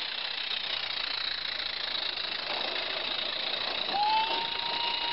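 Roundhouse live-steam G-scale locomotive running with its train, giving a steady hiss of steam. About four seconds in, a high whistle starts, rising briefly and then holding one steady note.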